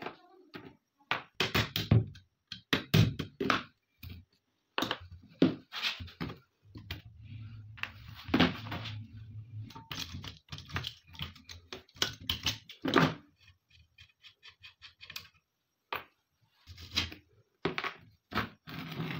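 Metal clicks, knocks and scrapes of pliers and locking pliers working on a rusty AK-47 receiver and its small steel parts. A low hum sits under it for a few seconds in the middle, and a quick run of small ticks comes a little after the middle.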